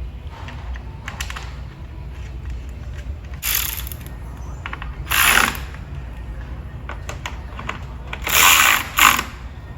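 Hand ratchet wrench clicking in short bursts, four times, over a steady low hum.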